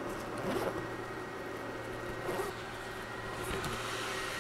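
Zipper on a fabric laser fire enclosure being pulled open, with faint scraping runs, followed by the stiff fire-resistant fabric flap rustling and a few light clicks as the lid is folded back, over a steady low hum.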